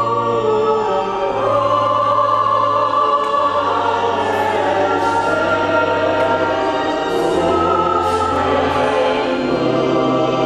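Choir singing in several parts, over held low bass notes that step downward one by one and then jump back up near the end.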